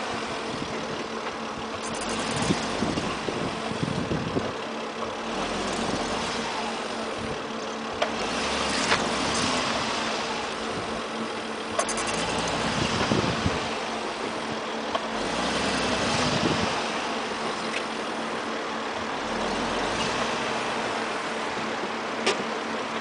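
Volvo S80 running, heard from outside at the right door mirror: a steady rushing noise that swells and fades every few seconds, over a constant low hum, with a few isolated sharp clicks.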